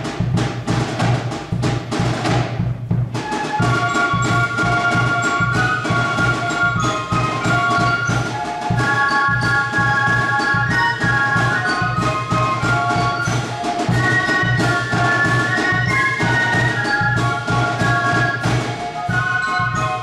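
A Spielmannszug fife-and-drum corps playing: drums alone at first, then about three seconds in the transverse flutes come in with a high melody over the steady drum beat.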